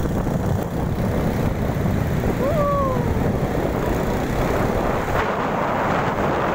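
Steady rumble of wind buffeting the microphone together with the noise of a moving vehicle on the road. About two and a half seconds in, a brief tone rises and then falls.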